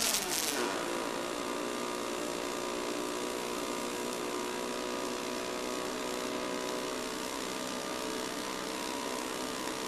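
Robotic arc welding on a rolled steel pipe section: a steady hiss over a machine hum, with a brief crackle and a falling whine in the first second.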